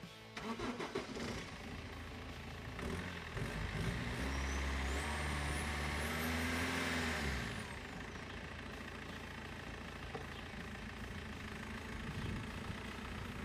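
BMW E46 car engine starting, then idling. About four seconds in it is revved and held up for a few seconds, then drops back to idle.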